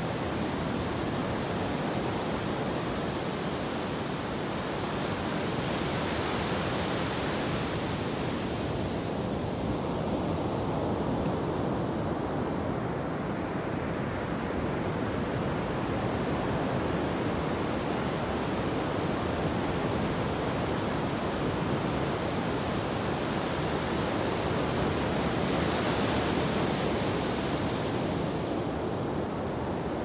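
Ocean surf breaking offshore and washing up a flat sandy beach: a steady rushing, with the hiss of foam swelling twice, about six seconds in and again near the end.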